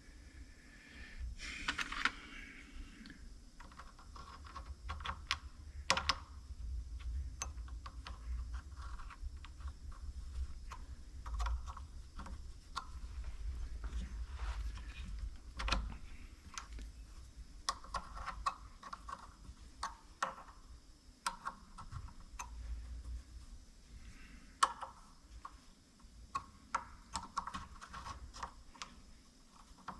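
Parts of a Starrett magnetic base clicking and tapping against each other as they are handled and fitted back together, with irregular light knocks and short bouts of scraping.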